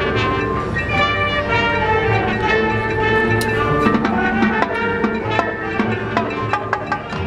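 Marching band playing: brass holding sustained chords over percussion, with sharp percussion strikes coming thicker in the second half.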